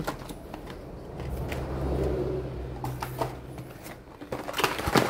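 Plastic lure packaging being handled, with a string of small clicks and rustles that grows busiest near the end, over a low hum that swells in the middle.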